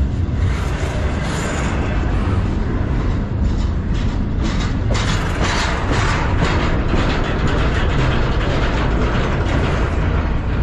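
Double-stack intermodal well cars of a freight train passing close by: a steady loud rumble of steel wheels on rail, with a stretch of sharper clattering about halfway through.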